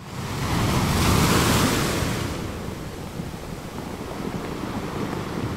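Sea waves: a rush of water swells in, is loudest for the first couple of seconds, then eases into a steady wash, with wind rumbling on the microphone.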